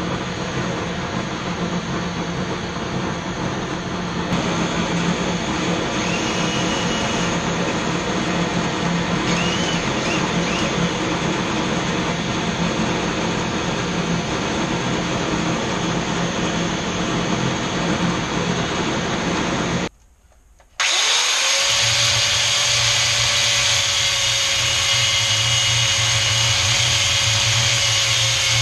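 A power tool runs steadily at the metal lathe for about twenty seconds. After a short break an angle grinder spins up with a rising whine, then holds a steady pitch as it grinds metal.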